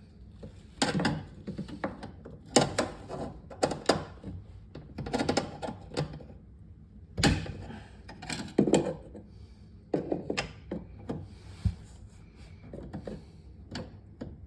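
Flat-head screwdriver clicking, knocking and scraping against the roller-wheel pin and its bracket on a refrigerator as the pin is pried out, in irregular taps and short clusters of clicks.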